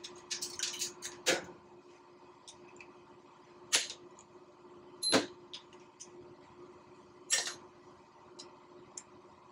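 Sharp metal clicks and clinks of a hand tool and small parts on the rear end of a Bosch alternator as it is taken apart: a quick cluster in the first second and a half, then single clinks every second or two. A steady hum runs underneath.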